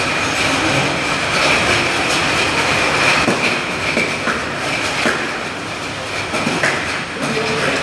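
US-100A automatic bottle unscrambler running: a steady mechanical whir with a high whine, and bottles clicking and clattering irregularly as they are sorted out onto the conveyor.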